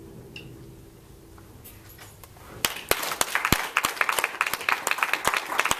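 Timpani ringing fading away after the last stroke of the solo, then, about two and a half seconds in, a small group of people clapping.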